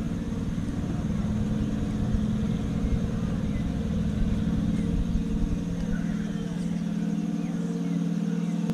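Boat engine running steadily on the river: a low, even hum with a rumble underneath.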